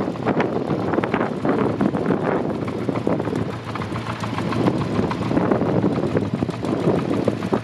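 Kawasaki Z400J's air-cooled inline-four engine idling steadily.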